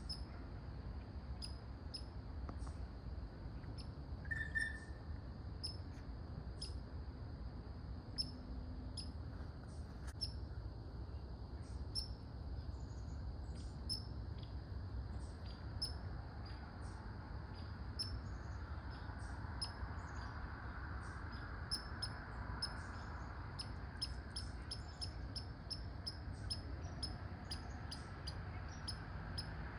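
Red squirrel barking: short, sharp, high-pitched chips repeated over and over, at first about one a second, then quickening to two or three a second in the second half.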